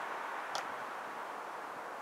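Steady outdoor background hiss, with one short high-pitched click about half a second in.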